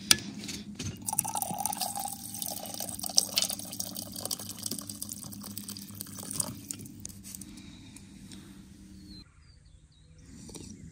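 Coffee pouring from the flip-lid spout of a Hydro Flask 32 oz bottle into a stainless Hydro Flask 12 oz mug, splashing for about nine seconds and then stopping abruptly. The lid clicks open at the start. A sip from the mug comes near the end.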